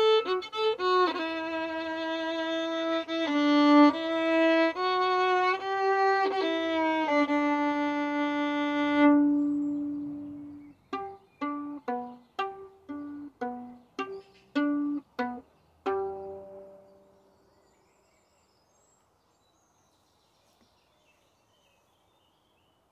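Solo violin playing a melody of bowed notes that ends in a long held note. It then plays a run of short plucked notes and finishes on a last note that rings and dies away.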